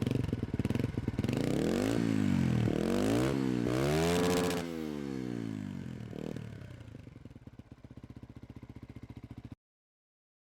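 Beta RR 125 LC motorcycle engine being revved in about three quick throttle blips, each rising and falling in pitch, then settling back to a pulsing idle. The sound cuts off suddenly near the end.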